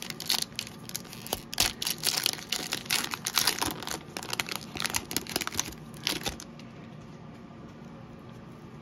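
Shiny foil wrapper of a trading card pack being torn open and crinkled apart by hand, a dense crackling that stops about six seconds in.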